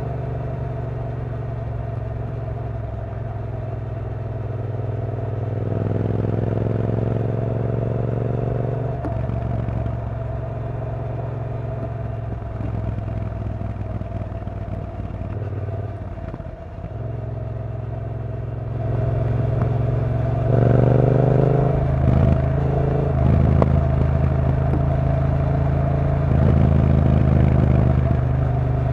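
2016 Triumph Bonneville T120's 1200 cc parallel-twin engine running under way. Its pitch climbs twice as the bike pulls through the gears, once about a quarter of the way in and again about two-thirds of the way in. It eases off briefly past the middle and runs louder over the last third.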